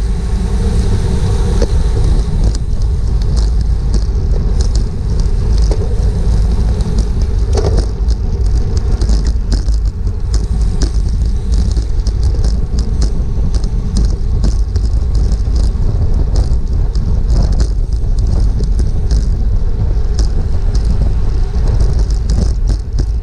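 Steady wind rumble on a GoPro microphone carried on a bicycle at race speed, with scattered sharp clicks over it.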